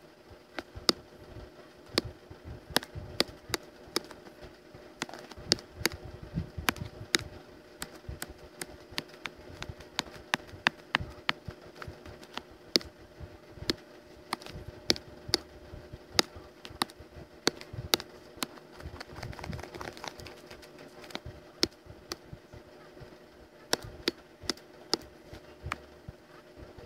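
Irregular sharp clicks and taps at the desk, about one to three a second, like keyboard keys and mouse or pen input while drawing on a computer, over a steady low hum.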